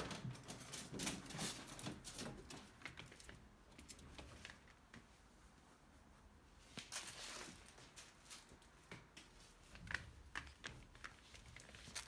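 Ferrets moving about among fleece blankets and on cage shelves: faint, scattered clicks and rustling, busier at the start and again in the second half.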